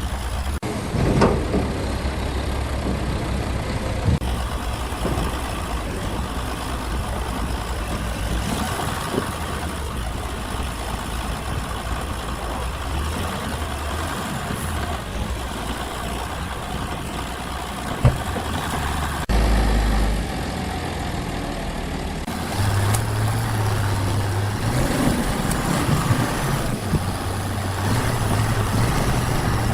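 Heavy engine running steadily with a low hum, with a few sharp knocks, the first about a second in and another a little past the middle; the tone shifts abruptly a few times.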